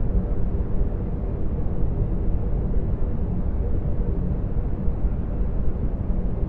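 Sound-designed hyperspace ambience for a Venator-class star destroyer's bridge: a steady low rumble with a faint, even hum underneath.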